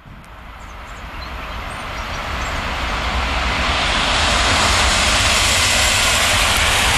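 Electric locomotive hauling a passenger train, approaching at speed and passing close by. The deep rumble and rush of wheels on rail grow steadily louder over the first four seconds, then hold steady and loud.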